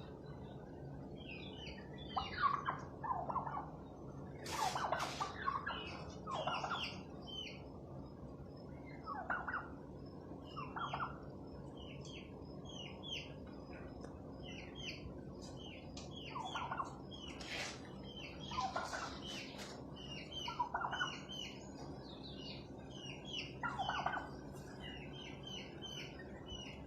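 Bourbon Red turkeys calling: short calls come every second or few seconds, with many small high chirps in between.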